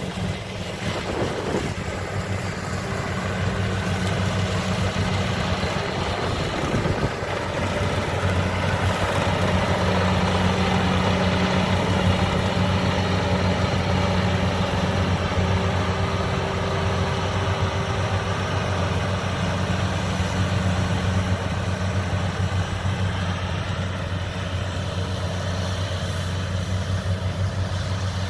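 Kubota DC-70 rice combine harvester's diesel engine and machinery running steadily during harvesting, a low even hum that grows somewhat louder over the first ten seconds.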